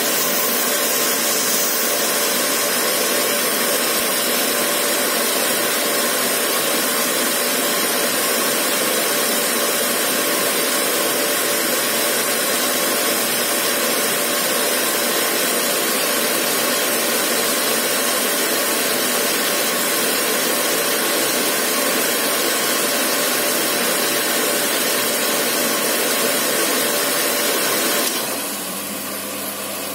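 Water spraying from the nozzles of a model automated car-wash station onto a toy car inside a clear plastic enclosure, with its pump running steadily. About two seconds before the end the spray noise drops and a lower hum takes over as the wash cycle moves to its next stage.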